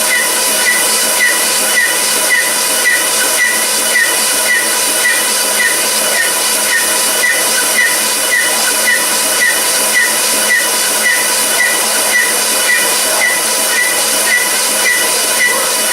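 Machine-shop equipment running steadily: a hiss with a steady hum and a short high chirp repeating about twice a second.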